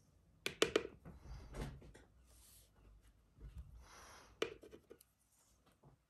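A paintbrush and painting gear being handled: a quick cluster of small clicks about half a second in and another near four and a half seconds, with soft rubbing and scraping between, like a brush being worked and tapped against a palette.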